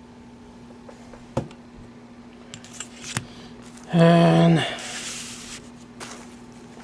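A few small clicks and handling noises over a steady low electrical hum, then a drawn-out spoken "and" followed by a brief hiss.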